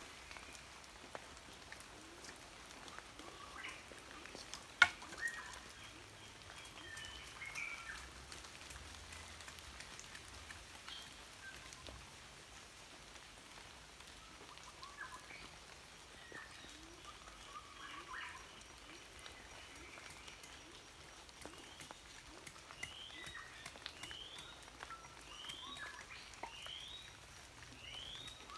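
Faint forest ambience of birds calling: scattered short chirps and, near the end, a run of quick rising whistles about two a second. A single sharp knock about five seconds in.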